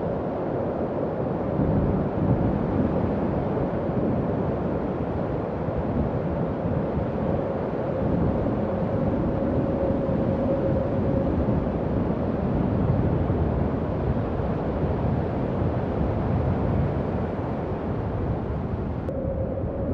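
Howling wind: a steady low rush with gentle swells and a faint held whistling tone running through it, strongest midway.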